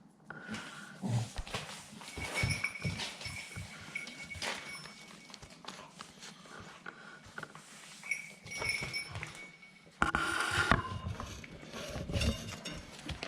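Staffordshire bull terrier puppies scuffling, with short high squeals and whines over a patter of knocks and scrabbling paws. It gets suddenly louder about ten seconds in.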